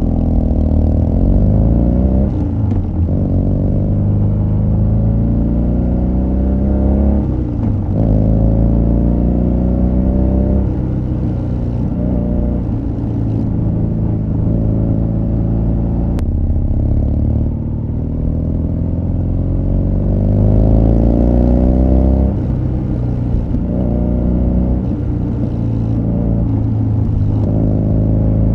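BMW R nineT Scrambler's boxer twin running through an Akrapovic exhaust as the bike pulls away and rides on. The engine pitch climbs and drops back at each upshift, levels off while cruising, then climbs again with another upshift about three quarters of the way through.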